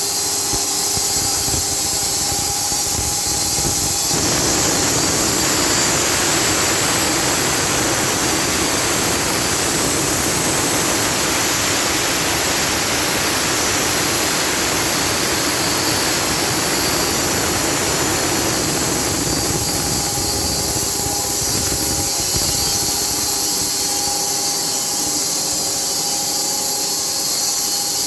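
Automatic sawmill running and sawing a wet beech log: a steady machine hum, with a louder, rougher rush of saw noise from about four seconds in until about twenty seconds, as the blade goes through the wood.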